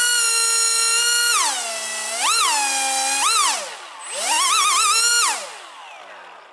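Brushless electric motor of a homemade foam RC jet run up on the throttle in a ground power test: a loud high whine that rises and falls in several blips, wavers briefly, then winds down and fades near the end.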